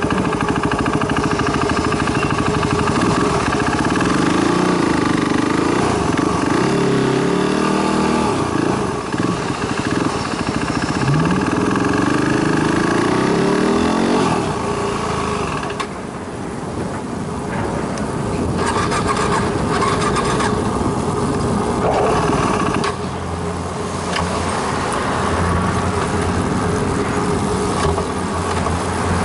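Yamaha WR250R single-cylinder engine being ridden, revving up and down through the gears over the first half. It then runs quieter and steadier, at a low, even speed, near the end.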